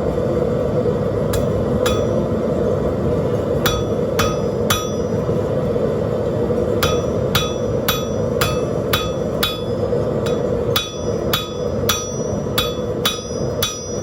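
Hammer blows on rebar over a steel anvil: runs of strikes at about two a second, each with a short metallic ring, in three groups that get longer toward the end. Under them is the steady roar of a propane forge burner.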